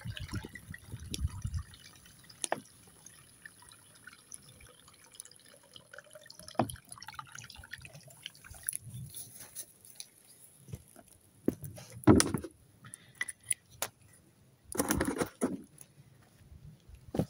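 Water being poured from a bag into a large pot of steaming brine over a wood fire to boil down for salt. The pour dies away within the first couple of seconds to a thin trickle and scattered drips. Two short, louder noises come later.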